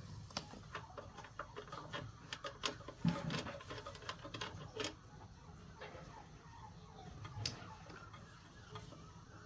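Irregular light clicks and taps, many in the first half and only a few after, with one sharper tick about seven and a half seconds in, over a faint low hum.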